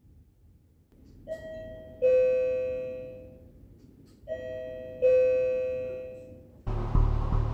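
Two-tone ding-dong doorbell chime rung twice, each time a higher note followed by a lower one that rings out and fades. Near the end a loud, dense rumbling sound starts suddenly.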